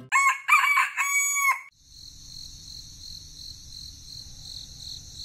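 A rooster crowing once, a three-part cock-a-doodle-doo over about a second and a half, the last part drawn out and falling away. Then a steady, high-pitched chirring with a faint low hum underneath.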